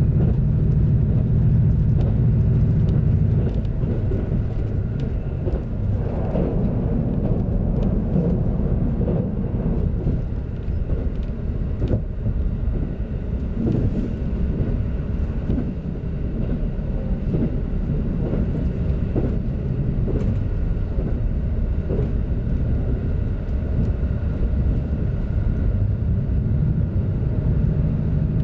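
Steady rumble of a KiHa 85 series diesel railcar under way, its diesel engine and wheels on the rails heard from inside the front passenger area. The low engine note is strongest for the first three seconds or so, then eases a little.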